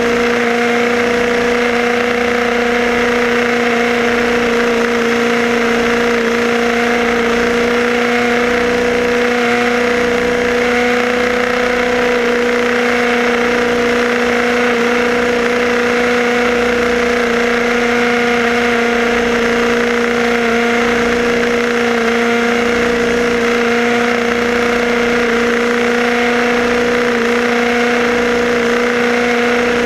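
Electric motor and gears of a Tamiya radio-controlled buggy whining at one steady pitch as the car runs at constant speed, over a hiss of its tyres on asphalt.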